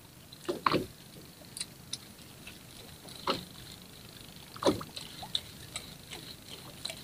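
Water slapping and splashing against the side of a small fishing boat: a handful of short, separate splashes a second or so apart over a quiet sea, with small ticks in between.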